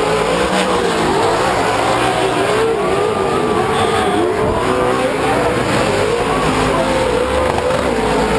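Several Pro 2 short-course off-road race trucks' V8 engines revving up and down at racing speed, their engine notes overlapping and rising and falling without a break.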